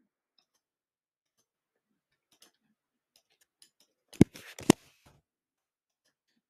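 Computer keyboard typing. A few faint taps come first; then, about four seconds in, a short burst of keystrokes with two sharp, loud strikes about half a second apart.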